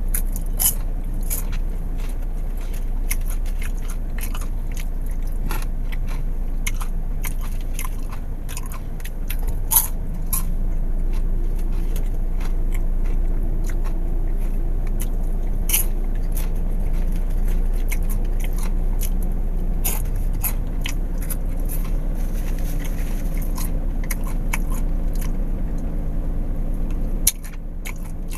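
Popcorn being chewed close to the microphone: irregular crisp crunches and crackles, over a steady low hum. Near the end a sharp click, after which the sound drops in level.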